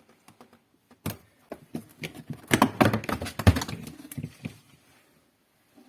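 A quick, irregular run of sharp clicks and knocks, like small hard objects being handled, lasting about three seconds.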